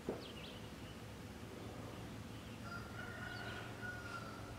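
Wild birds calling: two quick chirps near the start, then one long, steady whistled note lasting about a second and a half in the second half. A single short, dull knock comes right at the start.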